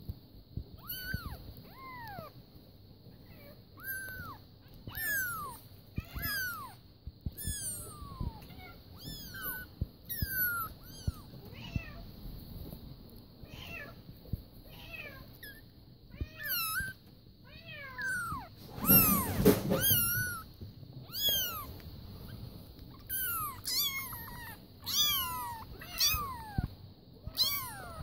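Nearly two-week-old F5 Savannah kittens mewing over and over: short, high cries that fall in pitch, about one or two a second, with several kittens calling at once. The calls grow loudest and most crowded about two-thirds of the way through, with a rougher, noisier cry among them.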